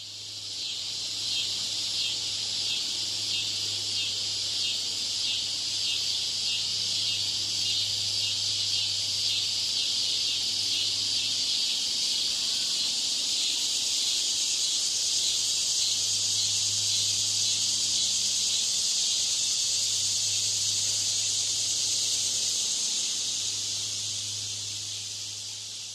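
Cicada song: a continuous high, shrill buzz, with a fast pulsing in the first half that smooths into a steady drone, fading in at the start and out near the end.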